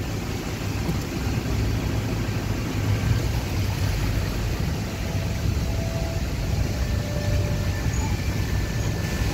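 Steady low rumble of a vehicle's engine and tyres heard from inside the cabin as it drives slowly.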